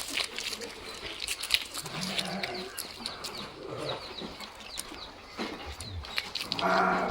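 Sheep bleating twice, the longer and louder bleat near the end, with scattered clicks and knocks and a few short high chirps.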